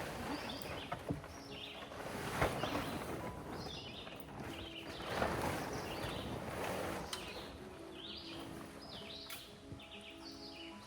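Birds chirping in short, repeated calls over steady outdoor background noise, with a single knock about two and a half seconds in.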